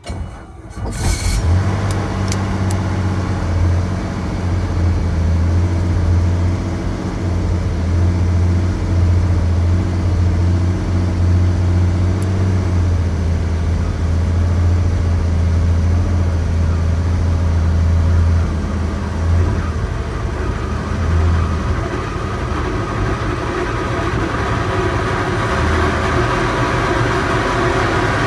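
Helicopter engine starting and running up: it comes in suddenly with a few clicks, settles into a steady low drone, then grows brighter and higher over the last several seconds as the low drone fades.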